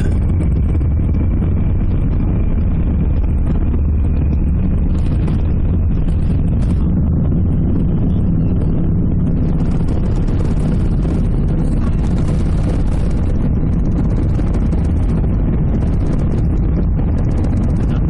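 Airbus A380 cabin noise during takeoff: a loud, steady low rumble and rushing air from its Rolls-Royce Trent 900 engines and the airflow, with a faint high whine over the first few seconds.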